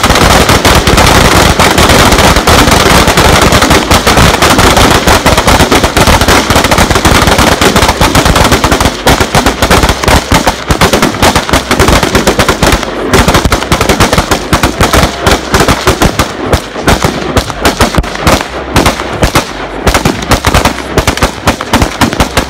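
Volley of gunfire from many AR-15 and AK-47 style rifles fired rapidly together by a line of shooters. The shots run together into a near-continuous roar at first, then thin out after about nine seconds into separate shots in quick succession.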